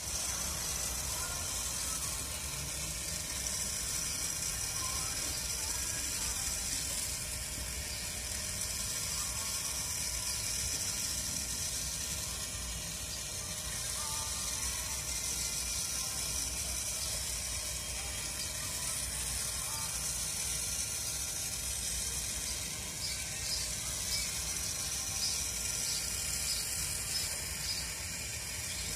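Rotisserie motor turning a loaded spit over a charcoal kettle grill, its gears ticking and whirring steadily.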